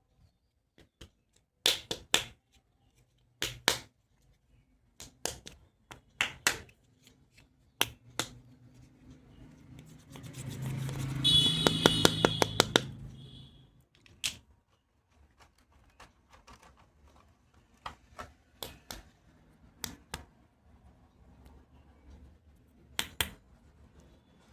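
Plastic toy doctor-kit pieces being handled, giving scattered sharp clicks and taps. About ten seconds in, a few seconds of rapid clicking swells up and fades away.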